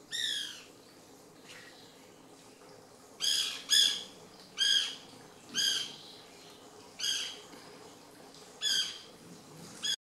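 White woodpecker calling: a loud, harsh squawk right at the start, then after a gap of about three seconds a series of similar squawks, roughly one a second.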